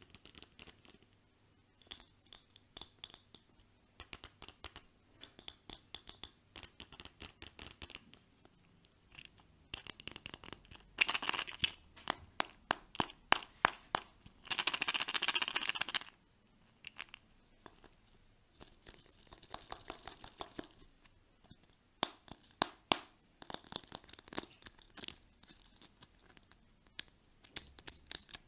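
Plastic packaging being crinkled and torn open by hand: a run of sharp crackles, with a few longer tearing sounds, the longest about halfway through.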